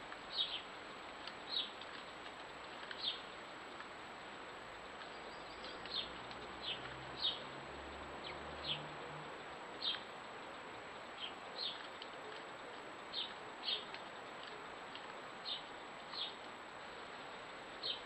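A small bird calling with short, sharp, high chirps, repeated irregularly about once a second over a steady background hiss.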